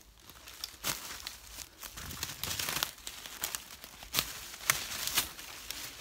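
Footsteps crunching and crackling through dry leaf litter and twigs, with leafy branches brushing past, in uneven bursts.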